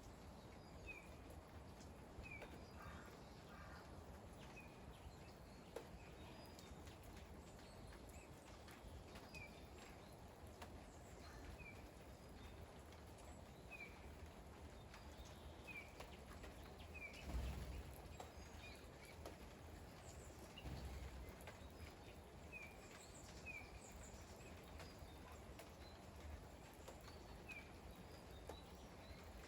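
Faint light rain, with a small bird giving short, high, falling call notes every second or two. A brief low rumble about seventeen seconds in.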